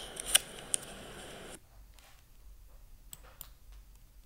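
Quiet background hiss that cuts off suddenly about a second and a half in, with a few faint small clicks scattered through.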